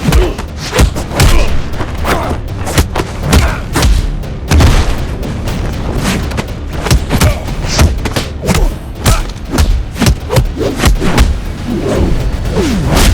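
A rapid run of heavy booms, thuds and hit sound effects, many strikes a second, over music.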